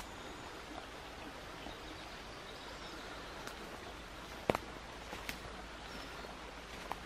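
Woodland ambience: a steady background hiss with a few faint high chirps, broken by a sharp click about four and a half seconds in and a lighter one shortly after.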